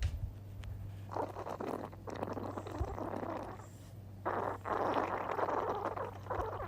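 A baby farting in three long, drawn-out stretches, the last one the longest and loudest, starting about four seconds in, over a steady low hum.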